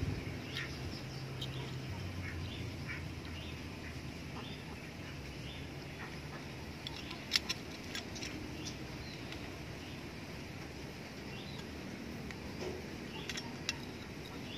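Small metal clicks and taps as a spring is fitted by hand into a homemade metal spear-gun trigger mechanism, with one sharp click about seven seconds in and a few more near the end.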